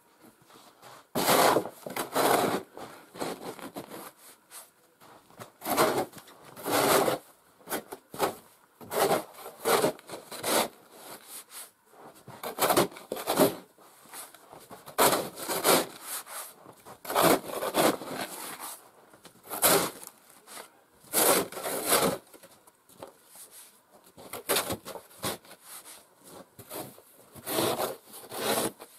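Snow shovel scraping and scooping snow in repeated strokes, one every second or two, with short pauses between.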